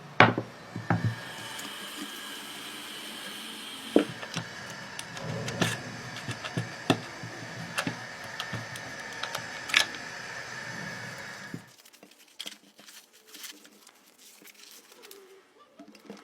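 Scattered clicks and knocks of small parts being handled, over a steady hum with a faint high tone that cuts off suddenly about three quarters of the way through, leaving only faint clicks.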